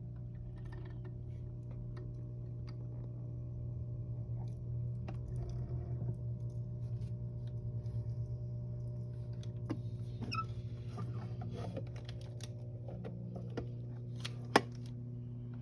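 Top Fin Indulge 3-gallon aquarium's filter pump running with a steady low hum, overlaid with irregular small clicks, crackles and gurgles: the unexplained gurgling noise the tank has started making, which cleaning the filter has not cured. One sharper click comes near the end.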